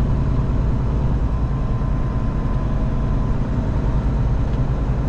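Semi truck's diesel engine running steadily under way with road noise, heard inside the cab: a constant low hum with no sudden changes.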